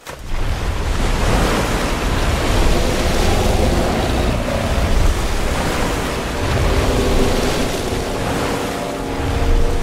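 Film sound effect of a giant ape rising out of a lake: a sudden, loud rush of water pouring and crashing down, with a deep rumble beneath it that goes on steadily.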